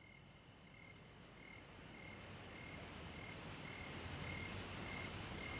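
Crickets chirping faintly and evenly, about twice a second, over a steady high insect hum, with a low rumble growing gradually louder.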